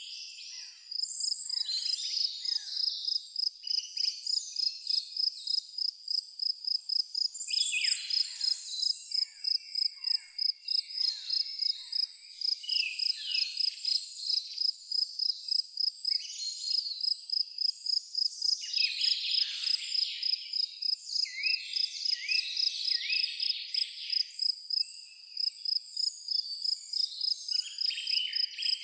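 An insect chirps in a steady, even pulse of high notes, several a second, while songbirds call and whistle over it in short, varied phrases.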